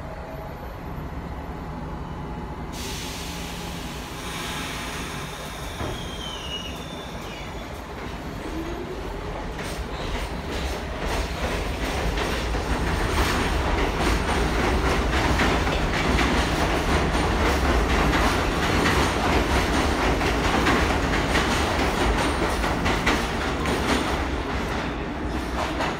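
R46 subway train approaching through the tunnel and running into the station, its rumble and clatter growing louder from about ten seconds in, with metallic wheel squeal.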